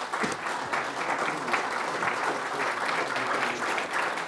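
Audience applauding: many people clapping together in a steady crackle at the end of a talk.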